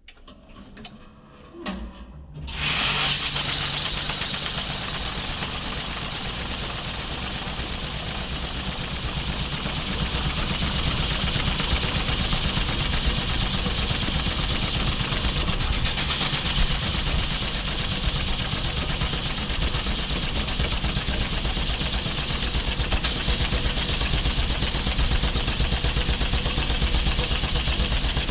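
Banknote counting machine starting about two and a half seconds in, after a few light clicks as the stack is loaded, then running steadily as a thick stack of notes flicks rapidly through its rollers with a fast, dense fluttering rattle.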